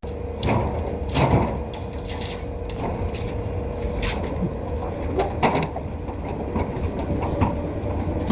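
Work-site noise: scattered sharp knocks and clicks over a steady hum, with a thin held tone that fades out about five seconds in.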